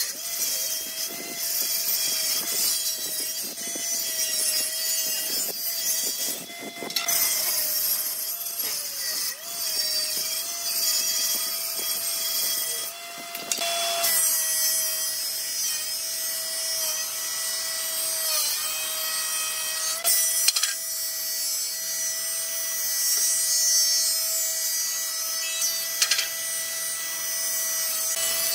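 Combination jointer-planer running as boards are planed. The cutterhead whines at a steady pitch that sags briefly now and then under load, over the hiss of blades shaving wood.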